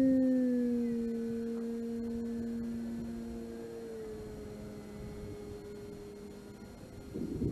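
Electric motor and propeller of an E-flite Carbon-Z Cessna 150 RC plane in flight, a steady whine. It drops in pitch about half a second in and again around four seconds, and fades as the plane draws away. A rush of noise starts near the end.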